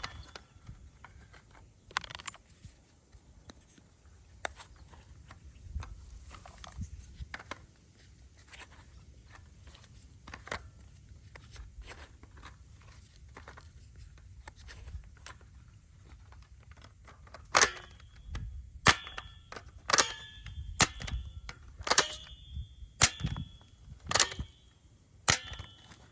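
Sharp clicks from a plastic toy pistol being worked: faint and scattered at first, then about eight loud snapping clicks roughly a second apart near the end.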